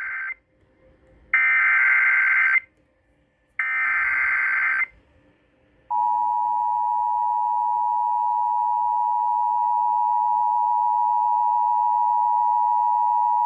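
Emergency Alert System activation on the radio, for a severe thunderstorm warning. The end of one screeching SAME header data burst is followed by two more, each about a second long with short silent gaps. Then, about six seconds in, the steady two-tone EAS attention signal starts and holds.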